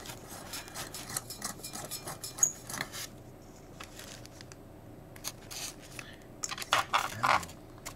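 Handling noise from a light bulb and its styrofoam packing: scattered light clicks and rustles, one sharp knock about two and a half seconds in, and a short burst of rustling near the end.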